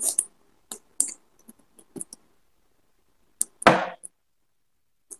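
Mouth sounds of someone eating fried fish by hand: scattered short wet clicks and smacks, with one longer, louder smack a little before four seconds in.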